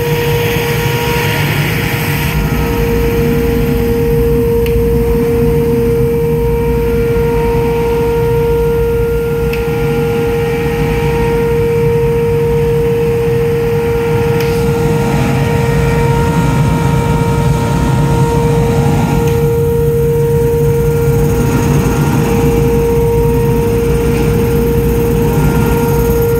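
Blastrac 554 dust collector vacuum running on 460 volts, its small built-in air compressor running too: a steady high whine over a dense low rumble.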